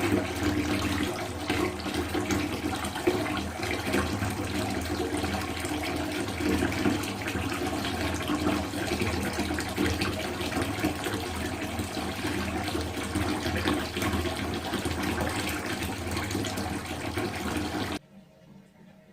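Water dripping and trickling into a bathtub, a dense continuous patter of drops that cuts off suddenly near the end.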